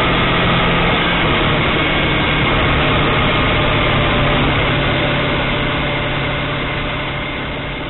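Motorcycle engine running steadily at cruising speed under a haze of wind and road noise, fading out over the last few seconds.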